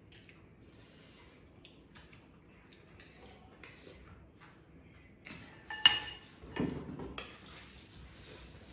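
Tableware clinking during a meal: faint scattered clicks, then one loud ringing clink about six seconds in, followed by a few softer clattering knocks.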